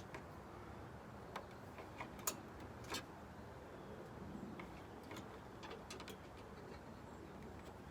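Faint, irregular clicks and light metallic taps, with a few sharper ones between about one and three seconds in: a bent steel rod being worked through the truck's grille to catch the hood latch.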